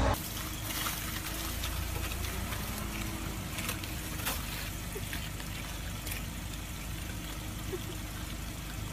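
Steady outdoor hiss with a few scattered sharp clicks and taps of ice as someone works at an iced-over car door.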